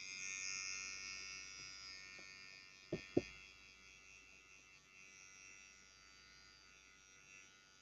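Electric toothbrush buzzing while brushing teeth: a steady high-pitched buzz that gradually grows fainter, with two short knocks about three seconds in.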